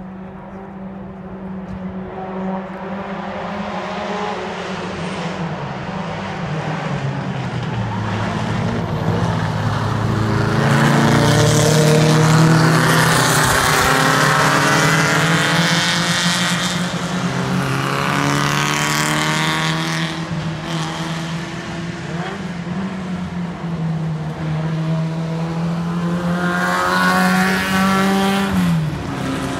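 Vintage race cars passing at speed on a road circuit, their engines building in level as they come up the course and loudest about halfway through. Another car goes by near the end, its engine note dropping in pitch as it passes.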